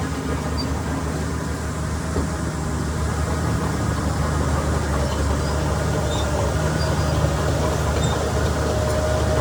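Heavy diesel earthmoving machinery running steadily, a low engine drone that grows gradually louder, with a faint higher whine joining in the second half.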